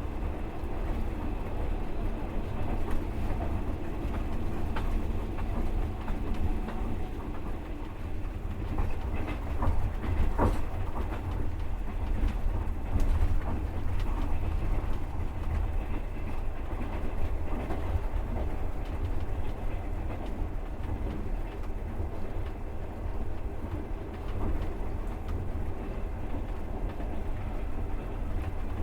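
Wheels of a passenger train clattering over the rail joints, over a steady low rumble, heard from inside the carriage. A sharper knock sounds about ten seconds in.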